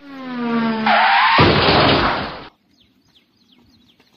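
A loud comedy sound effect, a pitched tone with a rush of noise over it, lasting about two and a half seconds and cutting off abruptly. Faint bird chirps follow.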